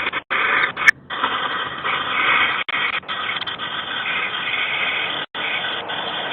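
Steady static-like hiss from a doorbell camera's low-quality microphone, cutting out briefly about every two and a half seconds.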